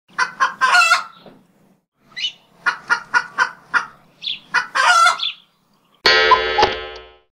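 Fowl-like clucking calls: a few short calls, then a quick run of clucks, then one longer held call about six seconds in.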